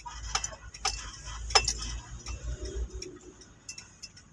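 Car keys hanging from the ignition clinking against each other in a few sharp, irregular clinks, over a low engine rumble.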